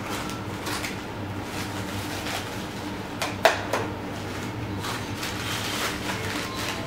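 Plastic courier bag being slit with a utility cutter and torn open by hand, its plastic rustling and crackling in short bursts, with one sharp snap about three and a half seconds in. A steady low hum runs underneath.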